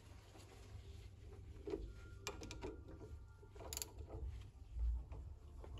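Faint, irregular clicks and small metallic knocks of a ratchet and socket turning a banjo bolt into a brake caliper as a braided brake hose is fitted.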